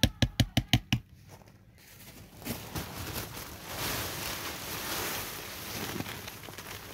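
A quick, even run of sharp taps, about six a second, during the first second. Then, from about two seconds in, the crackling rustle of dry shredded cardboard pouring out of a plastic bag onto worm bedding, getting louder from about four seconds in.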